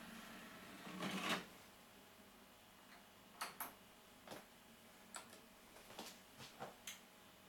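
Technics SL-P777 CD player's disc tray closing about a second in, followed by a scattering of faint mechanical clicks as the disc is loaded and started.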